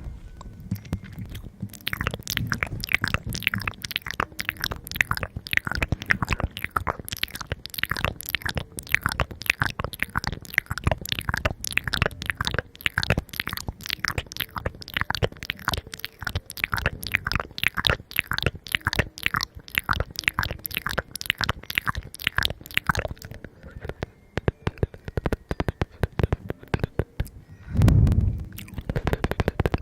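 Close-up crunching of crisp food being bitten and chewed, many crackles a second. It thins out about three quarters of the way through, and a loud dull thump comes near the end.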